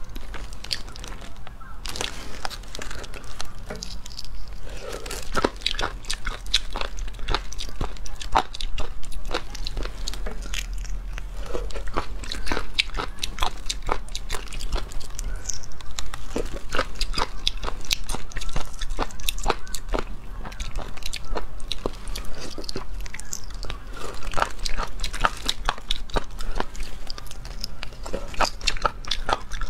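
Close-miked eating of small shelled snails: a dense run of sharp, irregular clicks and smacks of lips and shells as the snails are sucked out and chewed.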